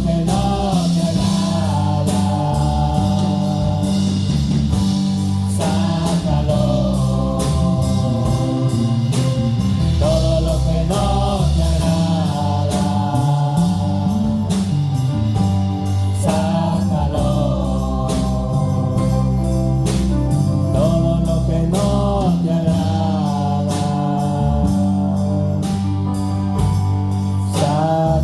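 Live worship music: sung melody over band accompaniment with a steady beat.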